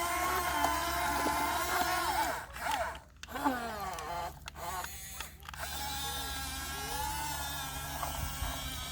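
Electric motor and hydraulic pump of a remote-control excavator whining steadily as it works. It cuts out briefly about a third of the way in and again a little past halfway, with the pitch sliding as it slows and picks up again.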